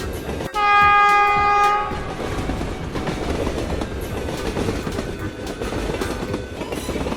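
Train horn blows once for about a second and a half. It is followed by a train running along the track with a steady rumble.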